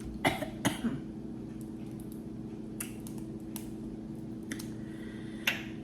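Scattered sharp clicks and crackles of food and packaging being handled and eaten at the table, about six over a few seconds, over a steady low hum.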